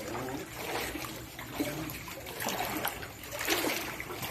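Floodwater splashing and lapping, with a few irregular splashes spread through the moment.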